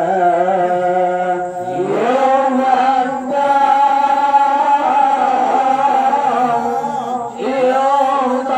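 A man's voice singing an Acehnese qasidah into a handheld microphone, in long held, ornamented notes with a rising slide about two seconds in.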